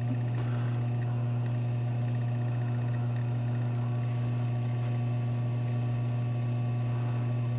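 Steady low electrical hum, even throughout, with a faint high-pitched whine joining about four seconds in.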